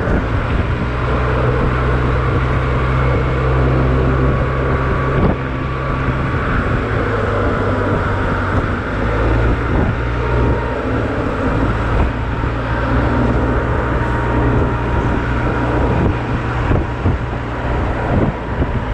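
Honda Silver Wing running steadily at road speed, its engine drone mixed with a low rumble of wind on the camera's microphone.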